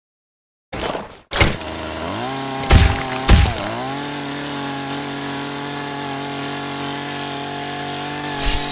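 Chainsaw engine sound effect: after silence, a short rasp about a second in, then the engine catches with two loud hits, its pitch swooping up and down, and settles into a steady running drone.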